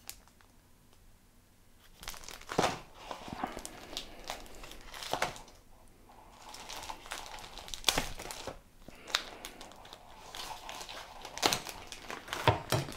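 Plastic packaging crinkling and tearing as it is cut open with a folding knife: a quiet first couple of seconds, then irregular crackles and rustles.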